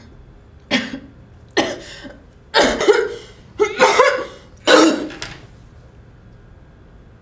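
A woman choking and coughing: five harsh coughs in a row, the later ones longer, stopping a little after five seconds in.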